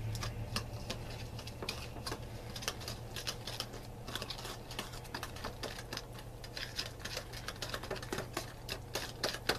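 Wire whisk beating a thick ketchup and brown sugar sauce in a bowl, its wires clicking rapidly and unevenly against the bowl's sides.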